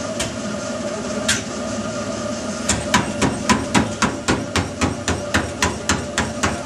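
Running footfalls striking a treadmill belt, starting about two and a half seconds in and coming fast and even at about four a second, over the steady hum of the treadmill.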